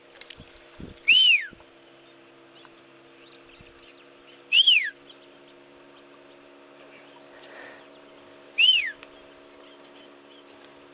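A person whistling to call in an African fish eagle: three sharp notes about three and a half seconds apart, each rising quickly and then sliding down.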